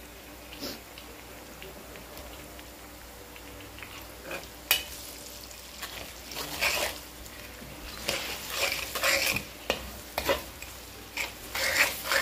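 Spice paste with tomato paste frying in oil in a pan, stirred and scraped. A low sizzle at first, then irregular scraping strokes from about four seconds in, coming thicker near the end.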